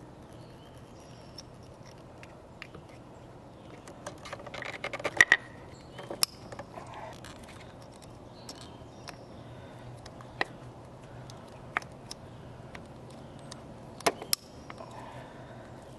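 Sharp plastic clicks and rattles of ignition coil-pack wiring connectors being handled and unplugged by hand, with a quick cluster of clicks about four to five seconds in and single clicks scattered after. A faint steady low hum runs underneath.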